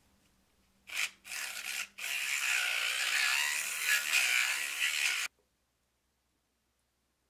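Small handheld battery mixer (milk-frother type) whirring in a small plastic cup as it blends purple mica powder into lavender essential oil: two short bursts about a second in, then a steady run of about three seconds that cuts off suddenly.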